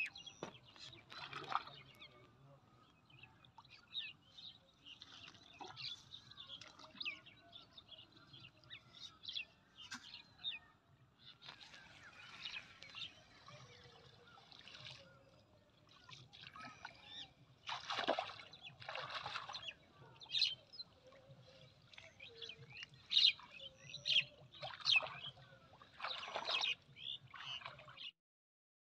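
Water splashing and dripping as people wade and haul a fine-mesh fishing net through shallow water, with birds chirping. The sound stops suddenly near the end.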